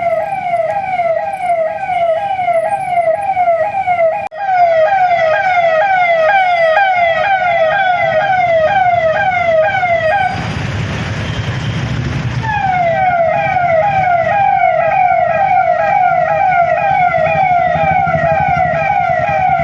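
Police vehicle siren on a fast yelp, a falling tone repeating about two to three times a second. For about two seconds near the middle it gives way to a rush of noise with a low rumble, then starts again.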